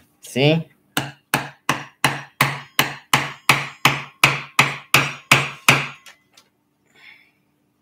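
Hammer striking a wood chisel held upright on a piece of wood, chipping away to widen a notch: a fast, even series of about fourteen sharp knocks, close to three a second, that starts about a second in and stops a couple of seconds before the end.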